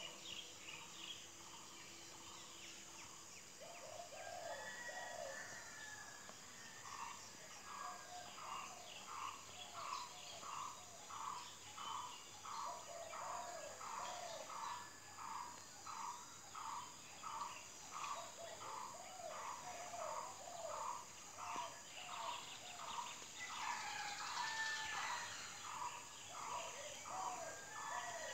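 Birds calling: one repeats a short call over and over, about every two-thirds of a second, from several seconds in, while other calls and chirps sound in between.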